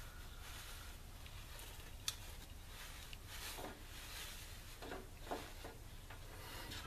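Faint handling noise from a stainless steel scouring pad being worked in the hands and fitted into a sock: one sharp click about two seconds in and a few soft crinkles later, over a low steady hum.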